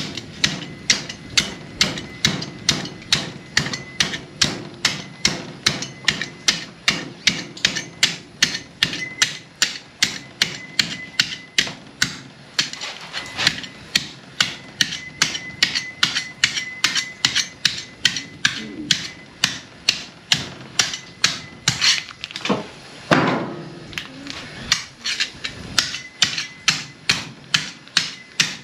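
A cleaver chopping steadily through an alligator gar's hard, armoured scale skin, with rapid even strokes about three a second.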